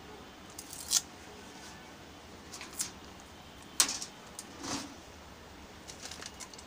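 Hands sticking clear adhesive tape over newspaper lining on a stainless steel dish rack: a few short, sharp clicks and rustles, the loudest a little under four seconds in.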